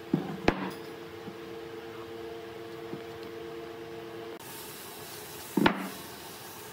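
Thick wooden tree-stump slices set down on a workbench top: a couple of knocks just after the start and one loud wooden thump about five and a half seconds in.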